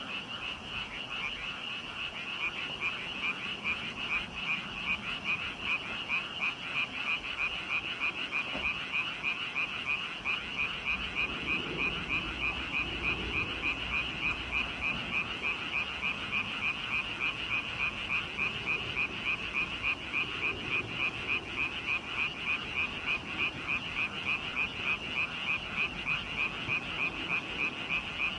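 Chorus of frogs calling continuously, many croaking calls overlapping into a steady, fast, even pulsing.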